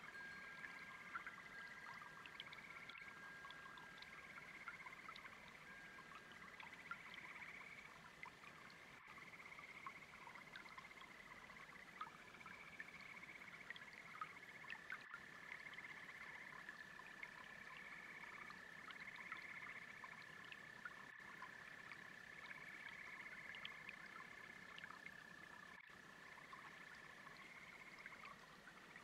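Faint chorus of frogs and toads: overlapping trills near one pitch, one held steadily for over ten seconds in the second half, with many short chirps scattered through, over a faint brook.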